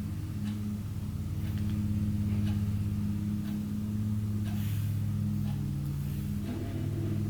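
A steady low hum runs throughout, with faint light clicks and taps over it.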